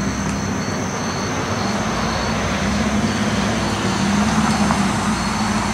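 Steady road-traffic noise with a low engine hum that grows a little louder after the middle, as a vehicle passes or draws near. Insects chirp in an even rhythm above it.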